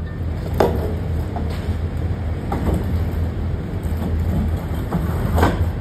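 Heavy truck's diesel engine running steadily as the truck sets off, with several short knocks and rattles.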